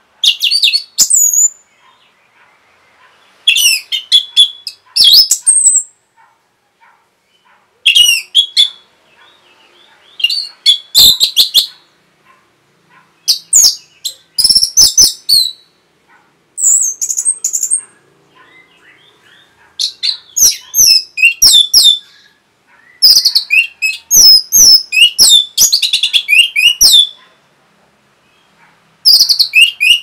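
Orange-headed thrush singing loudly in short bursts of rapid, sweeping, high notes, about nine phrases with brief pauses between; the longest phrase, near the end, runs about four seconds.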